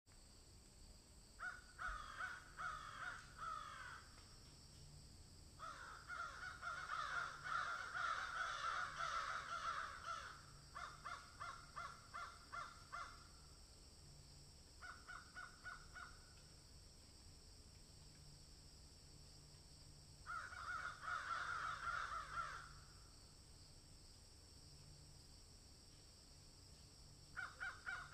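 Harsh animal calls in bursts of rapid, raspy pulses, each bout lasting from one to several seconds, separated by pauses.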